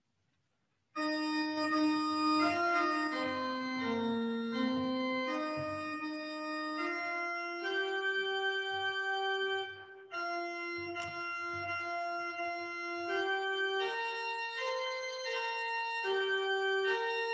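Church organ playing a hymn tune in sustained, steady chords. It comes in about a second in and pauses briefly between phrases a little past halfway.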